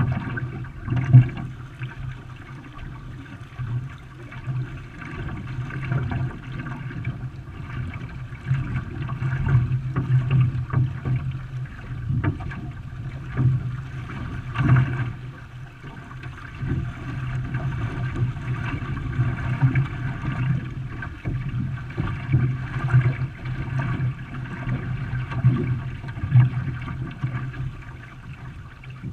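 Water splashing and gurgling along a racing canoe as it is paddled, over a steady low hum.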